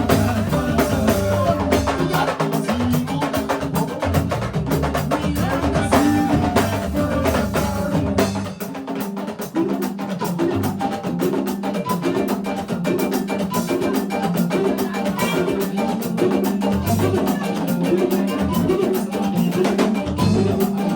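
Senegalese mbalax song with busy drum percussion. The deep bass drops out about eight and a half seconds in, leaving lighter percussion over a repeating low line.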